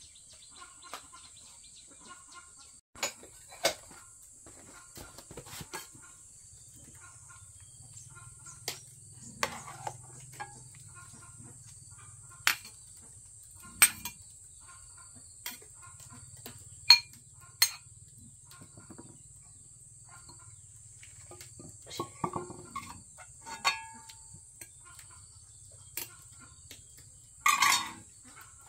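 Steady high-pitched insect drone with scattered sharp clicks and knocks throughout, and a louder cluster of knocks near the end.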